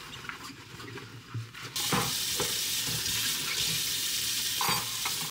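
Water running from a kitchen tap into a sink, with a few short knocks. The water gets louder about two seconds in and cuts off suddenly at the end.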